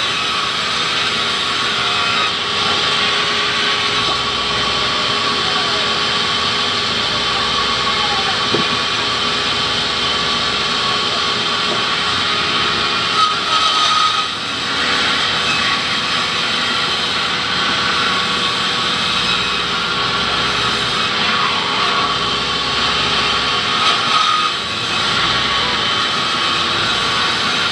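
Sawmill band saw running and cutting lengthwise through a hardwood log: a loud, steady sawing noise with a high whine, dipping briefly about 14 and 24 seconds in.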